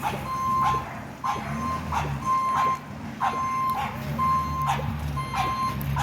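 Dump truck's reversing alarm beeping about once a second, each beep about half a second long, over the truck's engine running.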